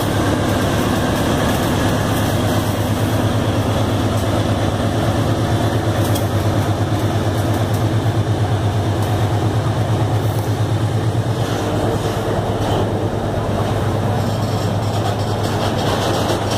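Diesel locomotives of a freight train passing close by, engines running with a low, pulsing drone; freight wagons follow them past near the end.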